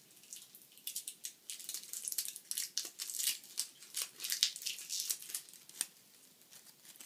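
Plastic packaging crinkling and tearing as it is opened by hand: a dense run of quick, sharp crackles, thickest in the middle.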